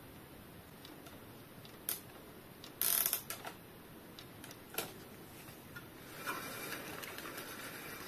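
Small mechanical clicks and rattles from a bicycle's rear wheel and Shimano disc brake being handled, with a louder clatter about three seconds in and a steadier rasping sound in the last two seconds.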